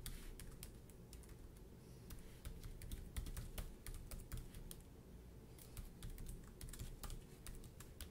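Faint typing on a computer keyboard: irregular key clicks in short runs with brief pauses between them.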